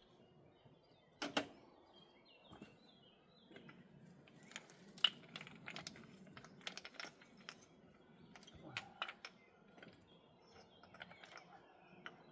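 Loose wall stones clacking and knocking together as they are picked through and handled, in irregular sharp clicks, the loudest about a second in and about five seconds in. Birds chirp faintly.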